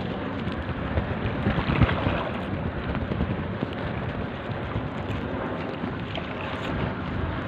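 Wind buffeting the phone's microphone at the open waterfront: a steady, uneven rushing noise with a deep rumble.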